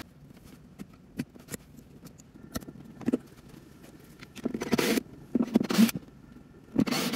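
Handling noises at a small 12 V water pump as its plastic quick-release hose fittings are unclipped: scattered light clicks, then a few short scraping rustles about halfway through and again near the end.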